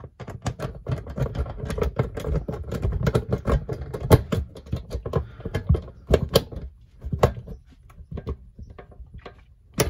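Hand screwdriver driving a screw through a metal shelf bracket into a steel drywall anchor in the wall: a dense run of clicks and scrapes that thins out in the last few seconds.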